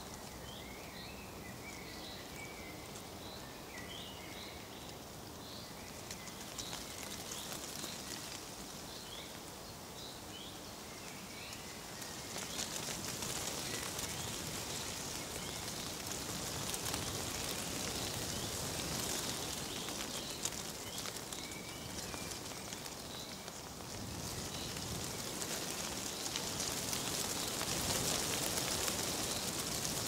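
Dry autumn leaves rustling with a steady crackly hiss that grows louder about twelve seconds in and again near the end, with small birds chirping through the first half.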